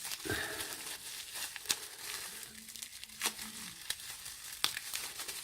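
Rustling and crinkling of packaging with scattered small clicks as a lock is taken out and handled.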